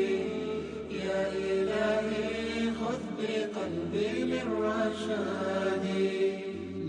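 Arabic devotional nasheed with layered chanting voices singing a held melodic phrase over a low steady drone that drops out briefly about three seconds in.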